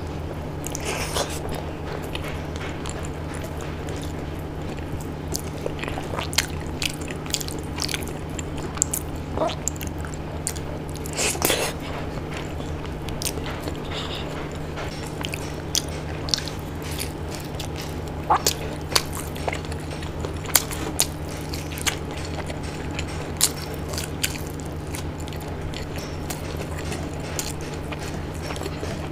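Close-miked eating sounds as a person chews khichdi and fried fritters taken by hand: scattered wet mouth smacks and sharp clicks over a steady low hum.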